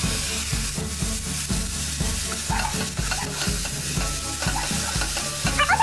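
Diced bacon and onions sizzling in a pot while a spoon stirs them, scraping through the pieces. Background music with a steady low beat plays underneath.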